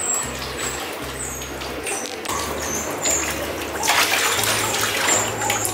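Water poured from a plastic bowl over a wet dog standing in a bathtub, splashing into the bath water; the pouring and splashing get louder about four seconds in.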